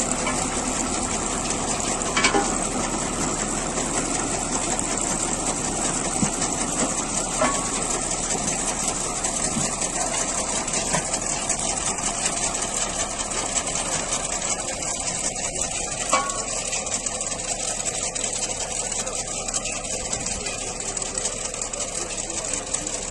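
A tractor running with a PTO-driven four-row potato digger working. The digger's chain-bar elevators rattle continuously, with a few sharper clicks.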